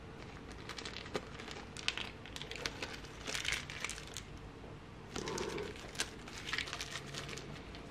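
Small plastic parts bags crinkling as they are handled and opened, in a run of short crackles with a few light clicks.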